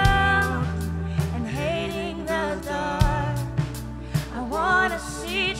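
Live contemporary worship music: a man sings lead into a microphone, his voice wavering on long held notes, over a band with a steady low bass and regular drum and cymbal hits.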